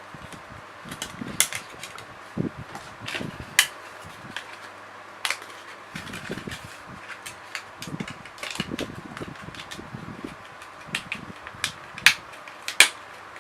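Irregular clicks, taps and light knocks of computer parts and packaging being handled, some sharper than others, over a steady background hiss. The loudest clicks come close together near the end.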